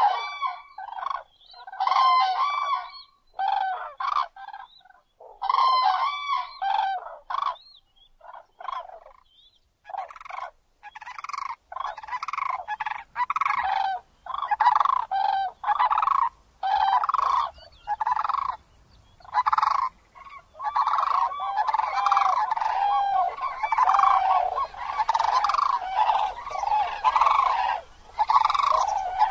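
Crowned cranes calling: repeated honking calls, in separate bursts at first, then coming quickly and overlapping in a near-continuous chorus from about a third of the way in.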